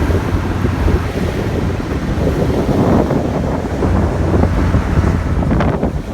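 Strong wind buffeting the microphone in a steady, rumbling rush, with ocean surf beneath it. A few short clicks come near the end.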